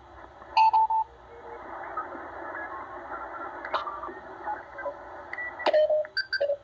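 Shortwave receiver in upper sideband being tuned up through the Morse code section of the 20-meter amateur band: steady band hiss with many Morse code tones at different pitches passing in and out during a CW contest. A few stronger signals give louder short tones about half a second in and again near the end.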